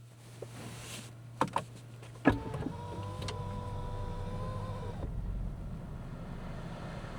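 Inside a car: two clicks, then a solid thud about two seconds in, then a small electric motor whirring steadily for about two and a half seconds and stopping. A low, steady rumble follows.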